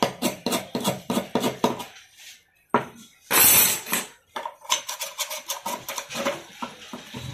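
Metal tools scraping quickly against a gas stove burner's metal mixing tube, clearing packed dirt and carbon: fast repeated scrapes with a flat steel scale, a short pause and a click, a brief loud rush of noise near the middle, then more rapid scraping with a screwdriver worked inside the tube, with a light metallic ring.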